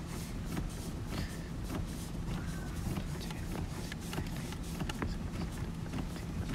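Clutch pedal of a manual C7 Corvette Stingray being pumped repeatedly by foot: a string of irregular light clicks and knocks over a steady low hum. The pumping circulates the fluid through the clutch hydraulics during a clutch-fluid change.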